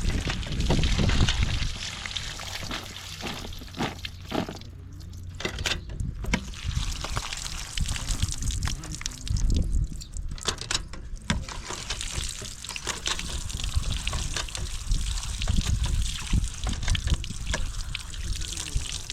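Water trickling and pouring, with scattered clicks and knocks throughout and a low rumble underneath.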